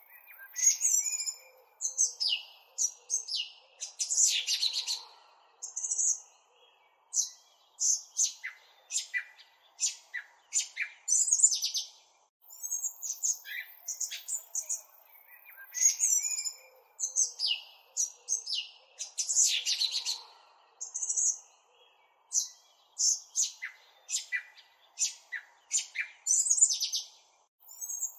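Small birds chirping and twittering in quick, high, short calls and trills, many overlapping, with brief gaps between bouts; the same sequence of calls seems to come round again after about fifteen seconds, as a looped recording would.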